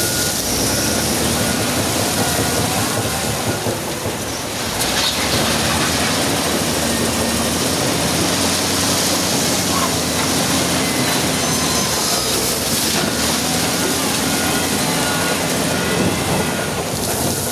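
Wheel loader working: its diesel engine running steadily under a dense rumbling, grinding noise, with a short dip in level about four seconds in.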